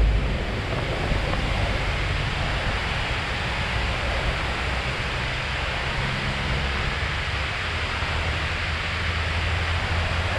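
Steady rush of water pouring over a wide low dam's spillway, with a low rumble of wind on the microphone underneath.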